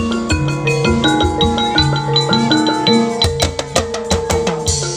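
Instrumental background music: a melody of short, quickly fading notes over a steady drum beat.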